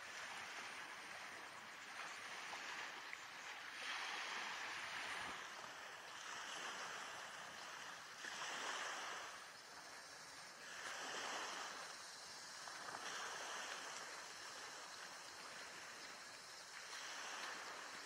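Small waves washing up on a beach, a soft wash that swells and ebbs every few seconds.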